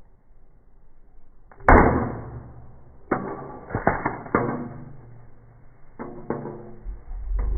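A flip phone striking hard ground with one loud impact, then several smaller knocks and clatters as it bounces and skids.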